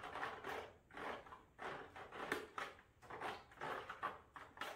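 Sauce being spread across the bottom of a disposable aluminium foil pan: a soft, rustling scrape of the foil, repeated about twice a second.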